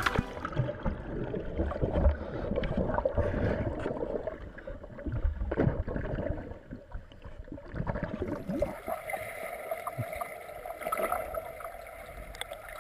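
Air bubbles gurgling and water churning, heard muffled with the microphone under water, with irregular dull knocks.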